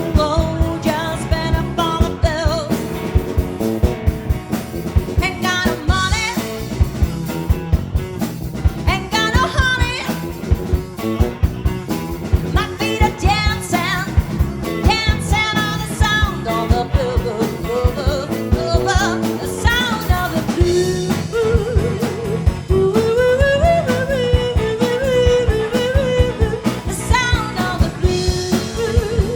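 Live blues band playing: a wavering lead vocal line over guitar, bass and a drum kit keeping a steady beat.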